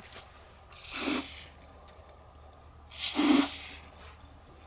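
Fogging oil sprayed from an aerosol can through a thin extension straw into an outboard engine's spark plug holes, in two short hissing bursts about two seconds apart, coating the cylinders against corrosion for winter storage.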